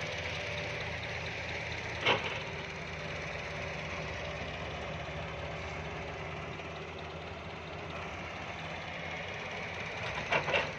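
Heavy machinery's diesel engine running steadily, with a sharp knock about two seconds in and a quick run of knocks near the end.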